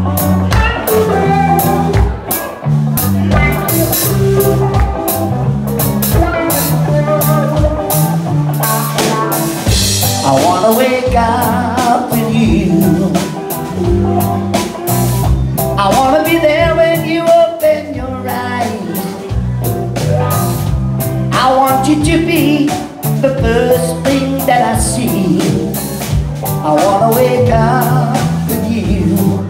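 Live band playing: a male lead singer with electric guitars, bass guitar and drum kit, at a steady beat.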